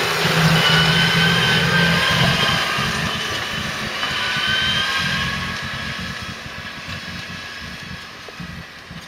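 Heavy diesel silage machinery running, a steady high whine over the engine, loud for about five seconds and then fading away.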